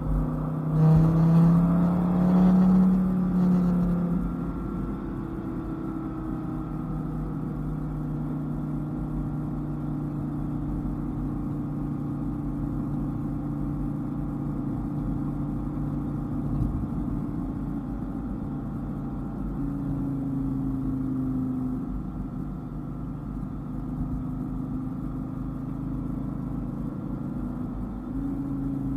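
Dodge Viper's V10 engine speeding up briefly in the first few seconds, then running at steady cruising revs, its pitch shifting upward about two-thirds of the way through.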